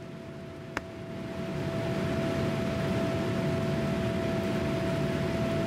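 Cabin noise of a Boeing 787 Dreamliner climbing just after takeoff: a steady rush of engine and airflow noise with a faint steady hum. It swells up over the first couple of seconds, after a single sharp click.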